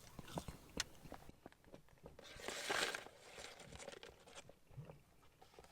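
Faint handling of paper fast-food packaging: scattered small clicks and crackles, and a brief rustle about two and a half seconds in.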